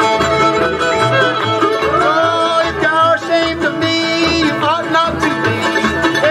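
Old-time string band playing live: fiddle, mandolin, acoustic guitar and upright bass together, the bass keeping a steady beat of about two notes a second.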